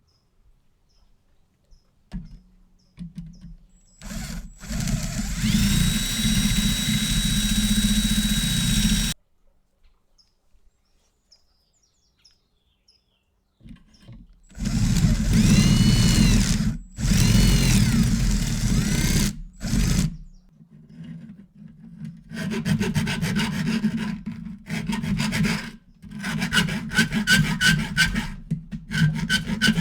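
Tool work on a plastic-and-metal enclosure. A motorised tool runs in two bursts of about five seconds with a steady high whine, and then there are quick, repeated rasping strokes, several a second, as of hand filing or sawing.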